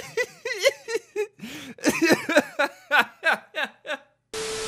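A man chuckling and giggling in a quick run of short laughs. Near the end, after a brief pause, a steady hissing buzz with one held tone starts.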